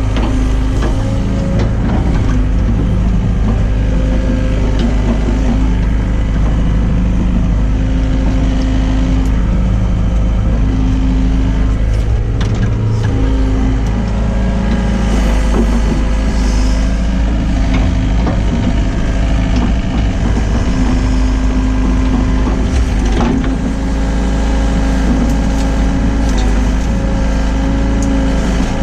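Hyundai excavator's diesel engine running under hydraulic load while digging, with a steady hum whose pitch shifts as the arm works, and a few knocks.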